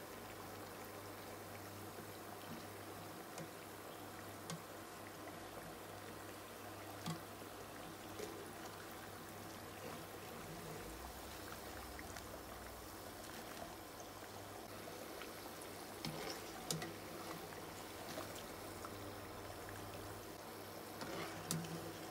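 Battered potato slices deep-frying in hot oil: a steady sizzling and bubbling. A few light clicks of a wire skimmer against the pan break through it as the pakoras are lifted out, the loudest about two-thirds of the way in and again near the end.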